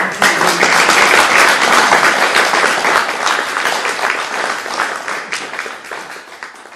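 Audience applauding, loud at first and dying away over the last few seconds.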